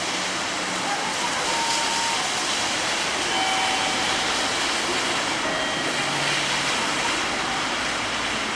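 Steady hiss of a rain-wet city street, with a few faint, brief tones.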